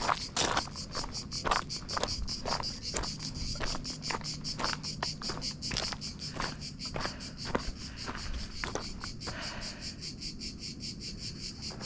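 Cicadas chirring in a fast, even pulse, with crunching footsteps on a stony trail that stop about nine or ten seconds in.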